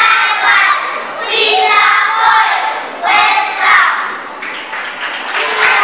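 A group of young children's voices calling out together in short phrases of about a second each, with brief gaps between them, a little quieter near the end.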